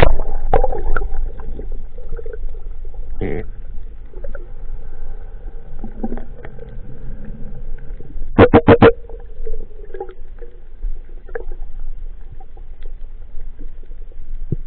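A splash as the diver ducks under the surface, then muffled underwater sound picked up by the camera, with a faint steady hum. About eight seconds in comes a burst of four quick clicks.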